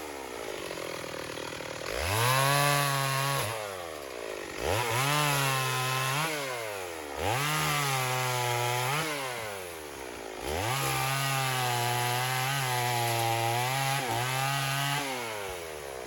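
Stihl 028 AV Super two-stroke chainsaw cutting wood. It is brought up to full throttle about four times, holds there for a second or more at a time, and drops back between cuts.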